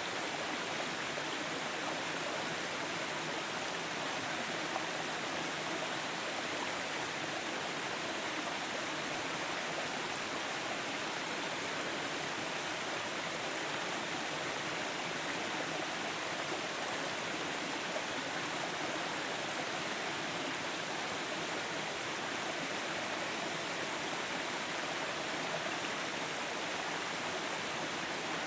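Stream water rushing and babbling steadily, an even wash of running water with no pauses.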